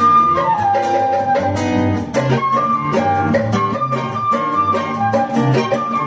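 Instrumental group music: a held melody line that slides between notes, over plucked guitar accompaniment and a quick, steady percussion beat.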